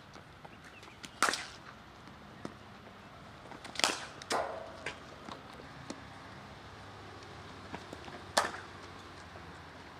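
Cricket balls cracking off bats in practice nets: one sharp crack about a second in, two more about half a second apart near four seconds in, and another past eight seconds, with fainter knocks between.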